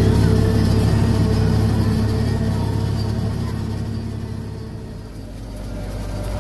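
Steady low drone of an MB-trac tractor and a trailed Kemper Champion 2200 forage harvester chopping maize, heard from inside a tractor cab. It dips for a moment about five seconds in.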